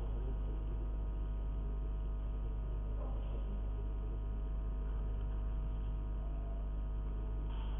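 Steady low electrical mains hum with a faint knock about three seconds in.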